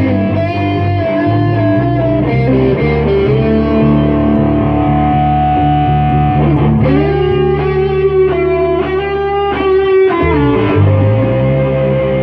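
Instrumental rock music led by electric guitar with distortion, over bass, with no singing: an instrumental break in a country-rock song.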